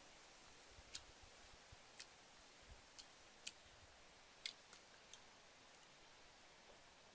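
A spoon clicking lightly against a plate while someone eats: about seven short, sharp clicks at irregular intervals against near silence.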